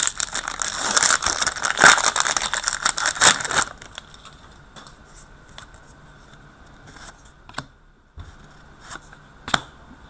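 Wrapper of a 2015-16 Upper Deck Champs hockey card pack crinkling and rustling as the pack is opened, for about three and a half seconds. After that it is much quieter, with a few light clicks as the cards are handled.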